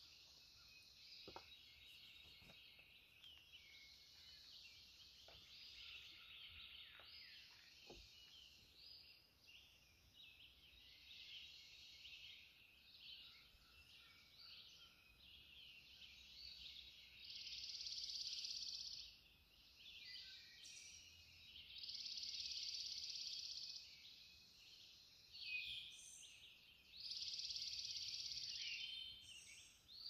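Dawn chorus of several songbirds in woodland: many overlapping chirps and short high songs. In the second half, three louder, dense songs of about two seconds each stand out.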